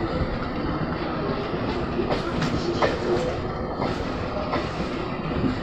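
Electric suburban local train (EMU) passing close by: a steady rumble of wheels on the rails, broken by repeated sharp clacks as the wheels run over rail joints.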